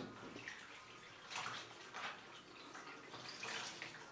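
A cloth being dipped and wrung out in a bowl of lukewarm water, with several short, faint splashes and drips of water.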